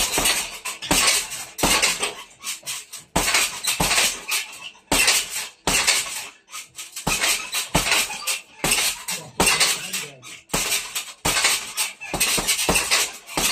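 Boxing gloves landing hard power punches on a hanging heavy bag, a steady run of thuds about two a second, with metallic rattling from the bag's hanger and stand.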